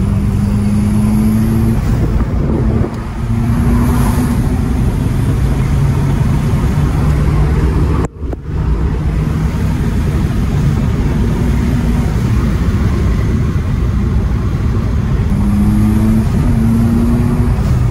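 Engine of a turbo-swapped Peugeot 306 pulling hard under acceleration, heard from inside the cabin, its pitch climbing several times. The sound dips briefly twice, about three seconds in and again about eight seconds in.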